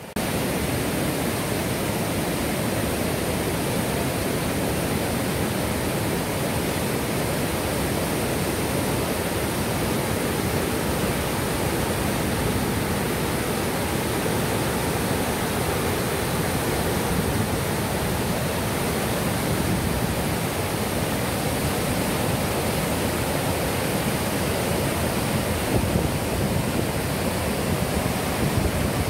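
White-water river rapids rushing over boulders below a dam's spillway, a steady, even rush of water.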